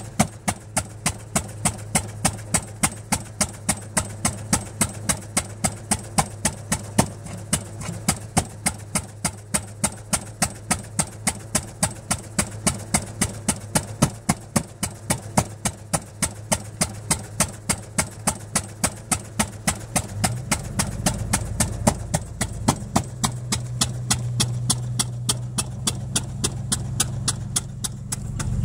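Single-cylinder Arrow C-96 engine driving an oil well pumpjack, running slowly with sharp, even exhaust beats at about three a second. About twenty seconds in, a lower steady drone joins under the beats.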